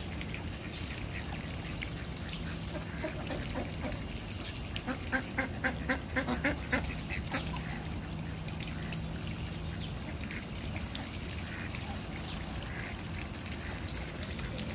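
Domestic duck quacking: a quick run of about eight quacks, roughly four a second, a few seconds in, over a low steady hum.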